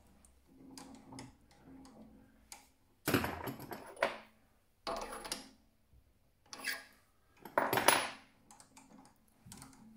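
Metal hand tools clinking and scraping, with scattered clicks and two louder rattling bursts, one about three seconds in and one near the end.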